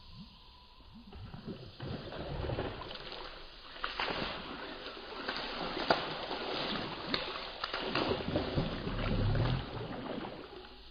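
Water splashing and sloshing as a hooked snakehead thrashes at the surface while the lure is reeled in, louder from about two seconds in, with a few sharp clicks.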